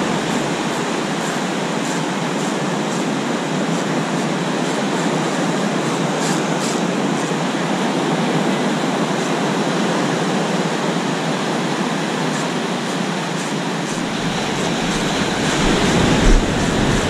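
Steady rush of surf breaking on a sandy beach, with wind on the microphone. About three-quarters of the way through, wind gusts add low buffeting thumps.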